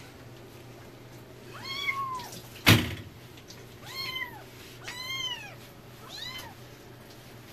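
Young kittens meowing, four separate high mews, each rising then falling in pitch. A single sharp knock about a third of the way in is the loudest sound.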